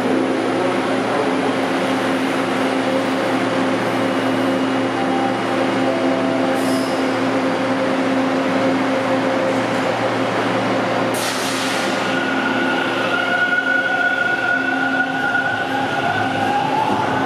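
TTC subway train running, a steady rumble with a constant hum. About eleven seconds in there is a brief hiss, then higher whining tones join, one of them rising in pitch near the end.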